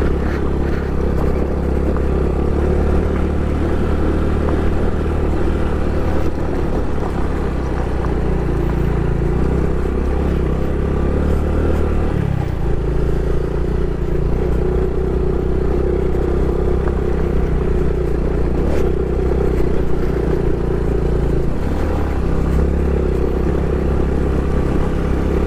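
Honda Pop 110i's small single-cylinder four-stroke engine running steadily under way on a dirt road, heard from the rider's position. The engine note shifts about halfway through and again near the end as the throttle changes.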